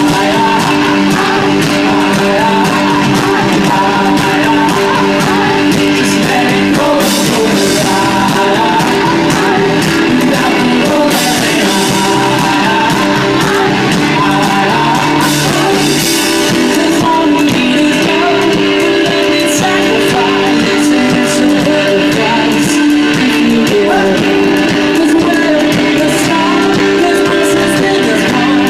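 Live rock band playing loud through a PA: electric guitars, drums and a male lead vocal, recorded from among the crowd on an iPod Touch.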